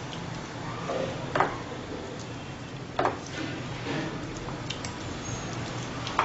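Spoon stirring chicken pieces in a thick marinade in a glass bowl: wet squelching, with a few sharp clinks of the spoon against the glass.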